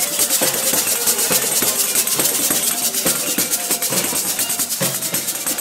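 Live street percussion music: a fast, even shaker rhythm with drum beats underneath.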